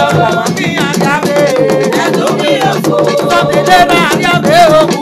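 Music: a singer over drums, a shaker-like rattle and held instrumental notes, at a steady, lively beat.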